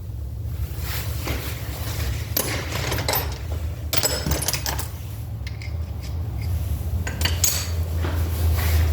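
Small metal parts and tools clinking and knocking together as distributor parts, shaft and bearing, are handled on a workbench. A few irregular sharp clicks over a steady low hum.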